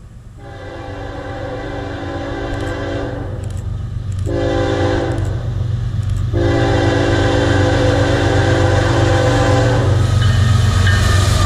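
Norfolk Southern diesel freight locomotive's air horn blowing the end of the grade-crossing signal: a long blast, a short one, then a final long blast. Under it the low rumble of the approaching locomotives grows steadily louder. Near the end the horn stops and the engine and wheel noise of the train drawing level takes over.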